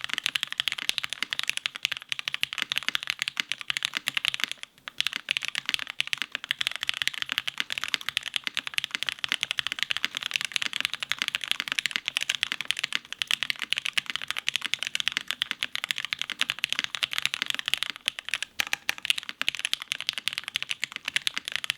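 Fast, continuous typing on a Monokei x Hand Engineering Kage custom mechanical keyboard with lubed, filmed Gateron Irene switches, a carbon fibre plate on a gummy O-ring mount, and GMK keycaps. There is a brief pause nearly five seconds in.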